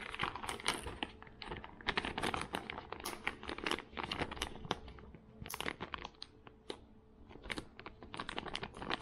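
Plastic soft-bait pouch crinkling and crackling as it is handled, in quick irregular crackles that thin out past the middle and pick up again near the end.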